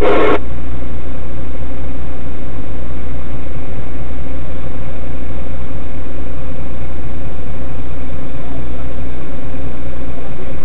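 A vehicle's engine idling with a loud, steady low drone.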